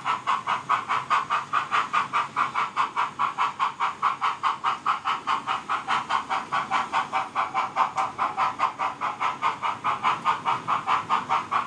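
Sound-fitted OO gauge model steam locomotive's DCC decoder chuffing steadily, about four beats a second.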